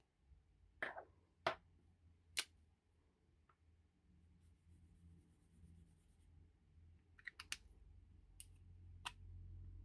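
Markers being handled and swatched on paper: sparse light clicks, with a quick cluster near the end, and a faint brief scratch of a marker tip on paper midway. Otherwise very quiet.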